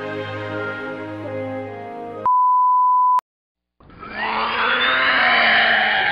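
Orchestral music that cuts off about two seconds in, followed by a loud steady beep tone lasting about a second. After a short silence, a loud, horrible noise with a whine rising in pitch begins about four seconds in.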